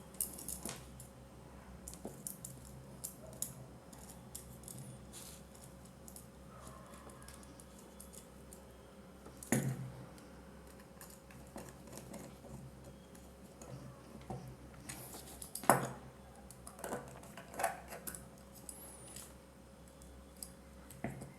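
Small clicks, taps and scrapes of hand work on a plastic three-pin plug, with a screwdriver and wires being handled, and two sharper knocks about ten and sixteen seconds in. A faint steady hum lies underneath.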